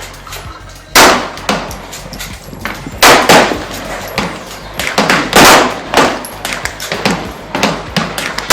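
Gunshots at an outdoor shooting range: three loud shots about two seconds apart, each with a trailing echo, and several fainter shots in between.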